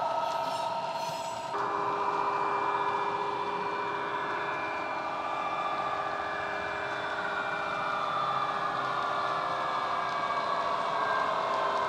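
Digitally reproduced Class 66 diesel locomotive engine (EMD two-stroke V12) running, played by the model's ESU LokSound decoder through its small speaker: a steady engine drone with a whine that slowly shifts in pitch. The sound changes suddenly about a second and a half in.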